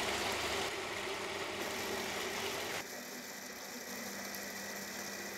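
Steady running noise of processing machinery, an even hum and hiss, which drops and turns duller about three seconds in.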